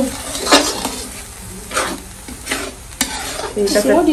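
Masala paste of onion and ground spices frying in hot oil in a pan, sizzling while a spatula stirs it and scrapes the pan with several sharp strokes. This is the stage where the masala is fried until the oil separates.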